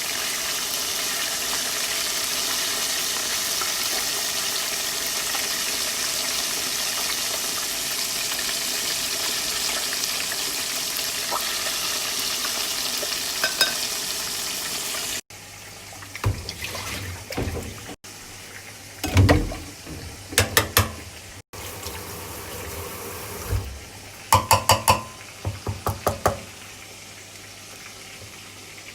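Food sizzling steadily as it fries in a pan, cutting off abruptly about halfway through. A quieter stretch follows with scattered sharp taps and clinks, some in quick runs of three or four, like utensils against cookware.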